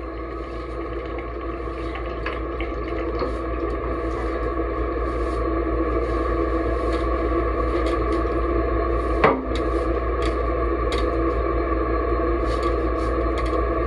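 Water running steadily from a bath tap, with a steady ringing tone carried through the pipes, growing louder over the first several seconds. A single sharp click about nine seconds in.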